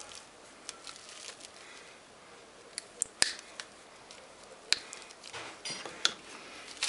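Wire cutters snipping into the copper stator winding of a refrigerator compressor motor, cutting it free on one side so the winding can be pulled out. A handful of sharp, irregularly spaced snips.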